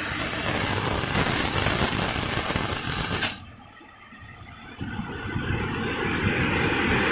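Aluminium cookware polishing machine running, a loud, even rushing noise of spinning polishing wheels working a pot. About three seconds in the sound drops off sharply, then builds back up over the next couple of seconds.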